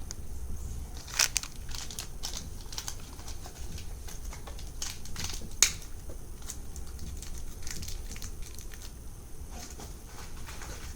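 Shopkins Season 4 toy packaging crinkling and crackling as it is handled and opened, with scattered small clicks and two sharper crackles, one about a second in and one about halfway through.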